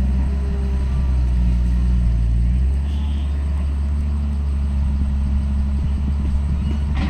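Diesel engine of a heavy earthmoving machine running steadily, with its engine note shifting about three seconds in.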